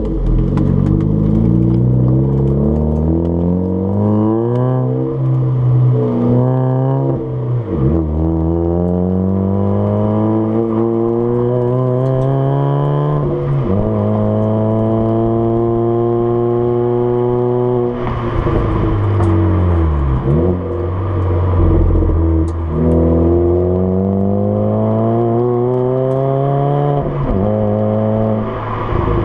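Hyundai Elantra (Avante AD) 1.6 petrol with a manual gearbox and a custom JSR dual exhaust, accelerating: the exhaust note climbs steadily in pitch and drops sharply at each gear change, about six times.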